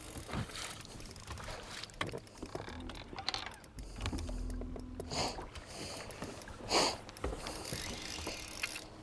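Scattered clicks and knocks from an angler handling a spinning rod and reel while fighting a fish from a bass boat deck, over a steady background of wind and water noise, with a brief low hum about four seconds in.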